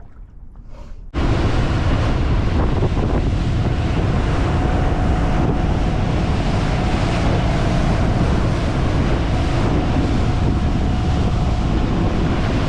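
Heavy wind buffeting the microphone over water rush on a boat under way, coming in abruptly about a second in as a loud, even roar with a faint steady engine whine beneath.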